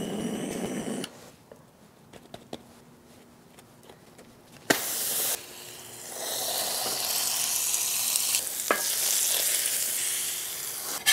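A butane torch hisses for about the first second. About five seconds in there is a sharp knock, then a Cuban sandwich sizzles steadily on a hot griddle under a heavy hinged press plate.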